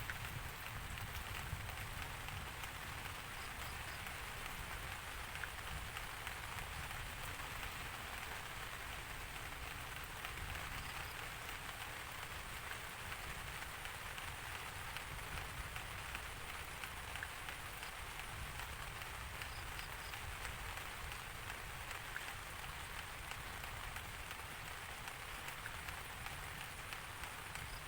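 Steady rain falling, a dense, even patter of drops on a surface.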